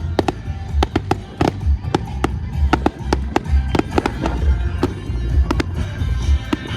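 Fireworks going off in quick succession: sharp bangs and crackles several a second over deep booms, with music playing underneath.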